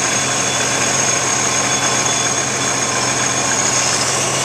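Supercharged Nissan 350Z V6 idling steadily while its single large Flex-a-lite Black Magic electric radiator fan runs, a constant rush of air over the engine's hum. The fan has switched on at about 210 °F coolant temperature and is pulling the engine temperature down.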